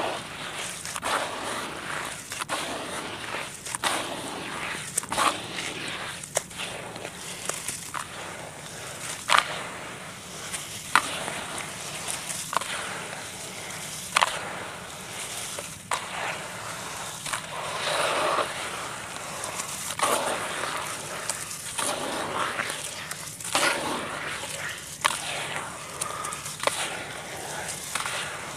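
Hands squeezing and kneading gritty red dirt mixed with water into a paste: wet crunching of grit, with irregular sharp crackles and clicks.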